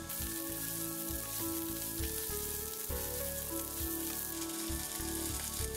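Deep-fried tofu cubes and sliced green onion sizzling steadily as they stir-fry in sesame oil in a pot, with soft background music.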